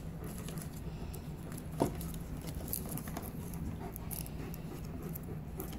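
Faint clicks and ticks of a small metal ring fastener being worked by hand on a bungee leash, with one sharper click about two seconds in, over a steady low hum.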